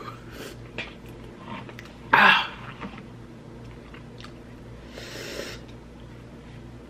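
Eating sounds of a person having sushi: quiet chewing and small mouth clicks. A loud, short cough-like huff of breath comes about two seconds in, and a softer rush of breath comes about five seconds in.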